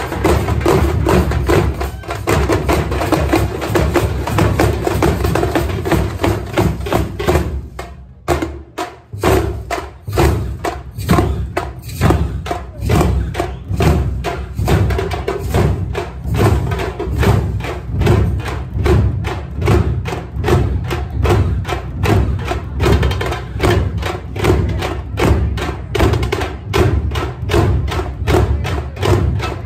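A troupe of Tamil parai (thappu) frame drums beaten hard with sticks, backed by larger barrel drums, playing a dense, fast rhythm. About eight seconds in the drumming nearly stops for a moment, then starts up again with a steady, evenly spaced beat.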